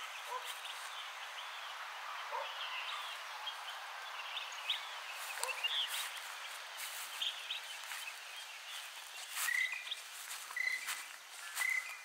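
Birds chirping at dawn in a rural village, with footsteps on a path. Near the end one bird repeats a short, even call about once a second.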